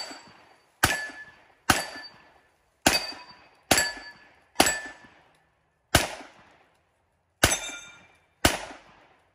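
Eight pistol shots, spaced about a second apart, each followed by a short echoing tail. Several are followed by a brief metallic ring as steel plate targets are hit.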